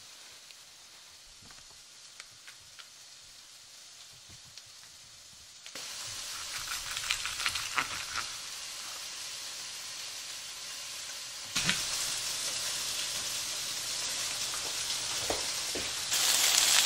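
Chicken thighs sizzling as they sear in a cast-iron skillet, a steady hiss that steps up louder twice and is loudest near the end. Before it sets in, there are a few faint clicks of knife and hands on a wooden cutting board.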